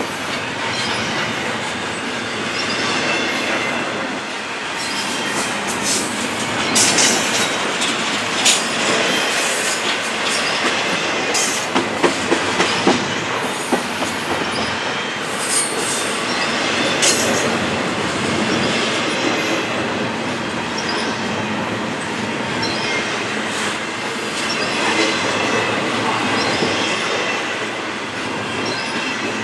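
Cars of a long CP intermodal freight train rolling steadily past, with sharp clacks of wheels over rail joints scattered through, thickest between about 7 and 17 seconds in, and some wheel squeal as the train takes the siding.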